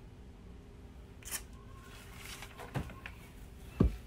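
A few handling sounds over quiet room tone: a short rustle, a couple of light clicks, then a low thump near the end, the loudest of them.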